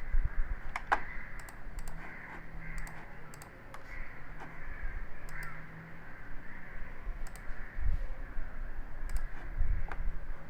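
Scattered computer keyboard and mouse clicks, a few sharp taps spread irregularly, over a low background hum.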